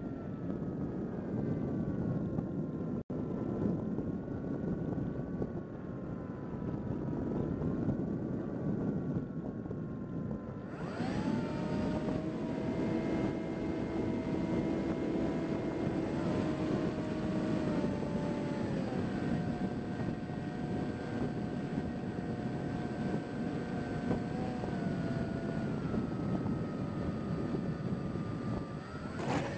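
Onboard sound of a Bix3 foam RC trainer plane in flight: wind rushing over the airframe, with the electric pusher motor's whine holding several steady tones that slide and step in pitch as the throttle changes. The audio briefly drops out about three seconds in.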